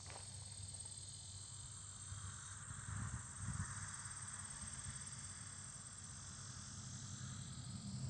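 Steady high-pitched trilling of a cricket chorus, under a low uneven rumble.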